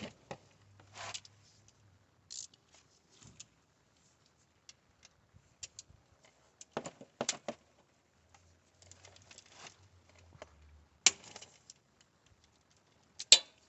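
Scattered light metallic clicks and clinks of a ratchet and socket working a CVT transmission drain plug loose, with a few sharper knocks, the loudest about eleven seconds in and near the end.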